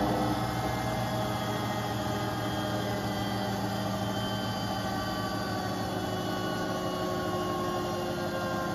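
Beko WTK74011W front-loading washing machine on its spin cycle: the drum spinning with a steady hum and a motor whine, some of the whining tones drifting slowly in pitch.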